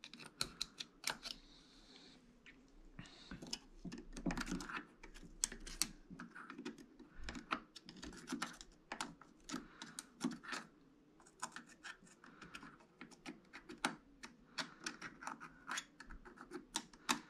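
Faint, irregular metallic clicks and scrapes of a pick probing an ARB twin air compressor's piston in its open cylinder, rocking the piston on its bearing. The piston's play on the bearing is what the owner takes for a failed bearing.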